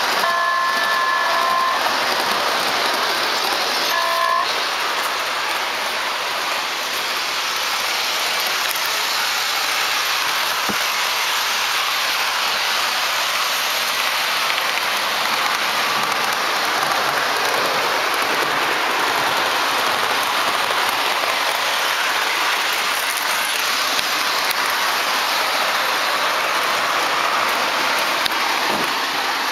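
O-gauge model diesel train (a Williams Jersey Central FM Trainmaster pulling hopper cars) running on the layout track, a steady rolling rumble and hiss of wheels and motor. A multi-tone horn sounds for about two seconds at the start and gives a short toot about four seconds in.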